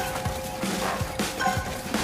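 Cartoon action background music with sustained tones and several sharp percussive hits.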